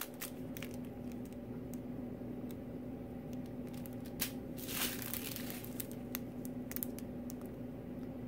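Small plastic zip bags of diamond painting drills crinkling and clicking as they are handled, with a longer crinkle a little under five seconds in. A steady low hum runs underneath.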